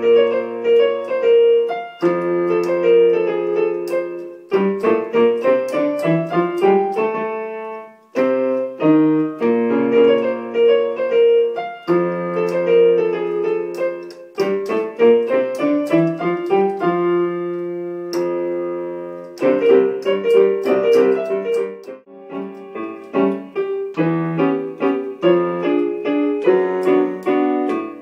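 Piano music played on a portable electronic keyboard's piano sound: a melody over chords in short phrases, each closing on a held chord, with one passage played twice.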